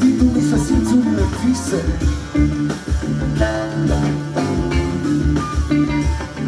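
A live band playing an instrumental passage with a steady beat: drum kit, congas, bass guitar and electric guitar.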